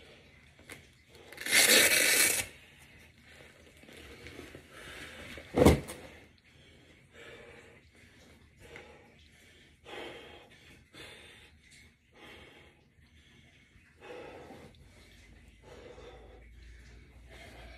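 The hook-and-loop (Velcro) straps of a weight vest rip open in one loud tear about two seconds in. A single thud follows a few seconds later, then quieter rustling.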